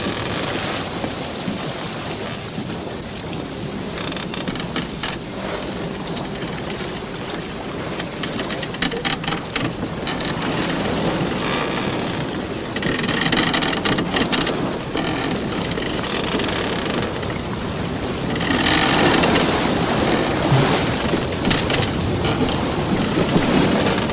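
Dense rushing wind-and-sea noise like a stormy ocean, with scattered crackles, swelling louder about three-quarters of the way through.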